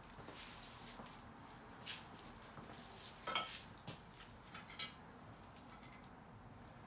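A few light clinks and knocks of small objects being handled, three or four in all, the loudest one about three seconds in with a brief ringing tone; quiet room tone between them.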